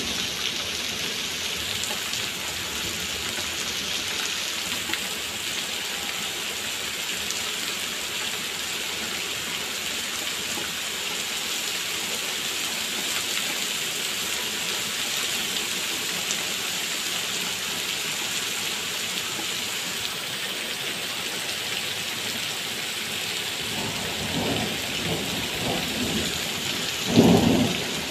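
Heavy rain pouring steadily and splashing on wet paving. Near the end a low rumble of thunder comes in, swelling loudest just before the end.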